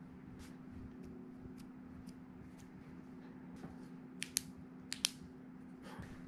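Faint handling noise: scattered light clicks over a steady low hum, with a few sharper clicks in quick succession about four to five seconds in.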